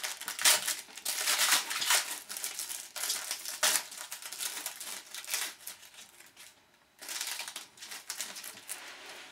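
Foil hockey-card pack wrappers crinkling and tearing as packs are opened and handled, in quick irregular bursts with a short pause about two-thirds of the way through.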